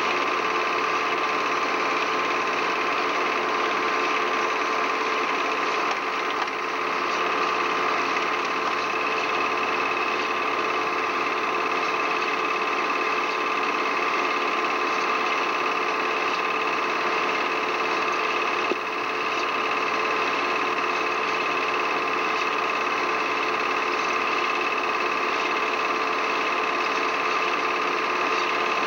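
A film projector running steadily: an even mechanical whir with a constant hum.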